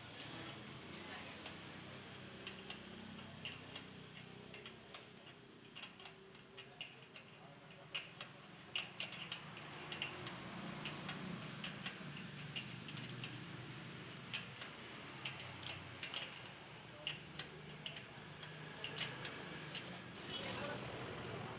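Irregular sharp metallic clicks and taps of hand tools working on a motorcycle's rear carrier and backrest bracket, as it is forced into position and its screws are fitted.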